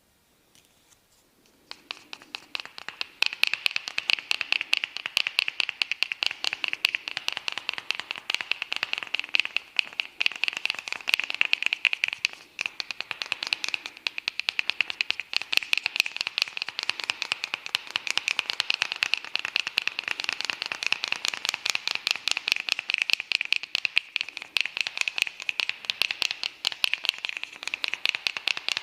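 Hair cracking: strands of hair twisted and snapped between the barber's fingers, a dense run of rapid sharp crackling clicks that starts about two seconds in.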